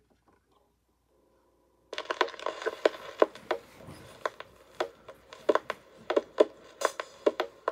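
Stylus in the lead-in groove of a 45 rpm vinyl single: surface noise, a hiss with irregular clicks and pops, starting suddenly about two seconds in.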